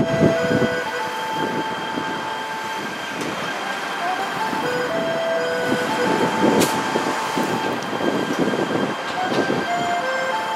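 Karakuri automaton clock playing its melody through a loudspeaker: a simple tune of held single notes stepping from one pitch to the next, over steady street traffic noise.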